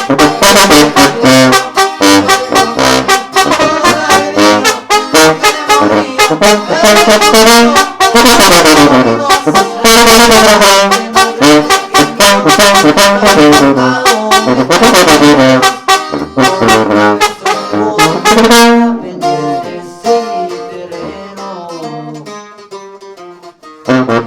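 Regional Mexican band with tuba and saxophone playing an instrumental passage without vocals. The full playing thins out about two-thirds of the way through and tails off, and the song ends with one last short chord near the end.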